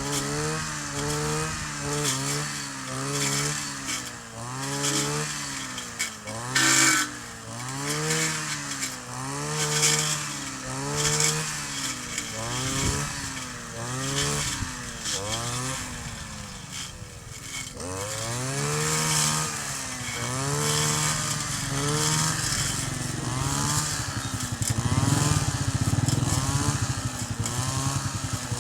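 Kioritz 260 two-stroke brush cutter engine revved up and dropped back over and over, about once a second, then held at a higher, steadier speed near the end.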